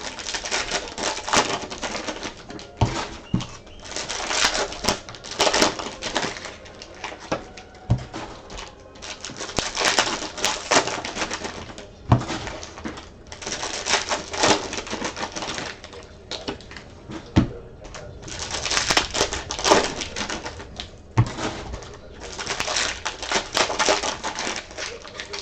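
Trading card packs being torn open and cards handled: repeated spells of crinkling wrapper and card rustle, with occasional light knocks.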